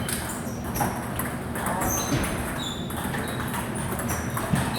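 Celluloid-type table tennis balls ticking off paddles and tables in an irregular, overlapping rally rhythm, over a murmur of voices.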